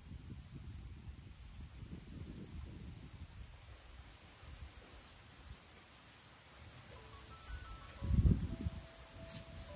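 Insects buzzing steadily in one high, even drone, over a low rumble on the microphone. One louder low thump comes near the end.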